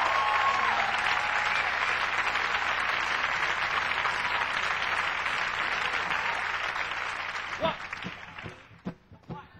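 Studio audience applauding, dying away about eight seconds in, with a few short sharp sounds as it fades.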